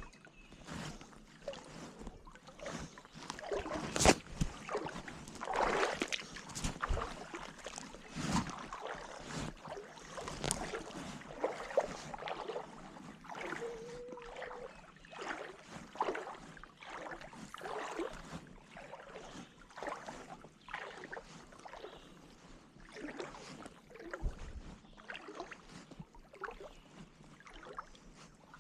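A small boat being paddled on the water: irregular splashing and knocking, with one sharp knock about four seconds in.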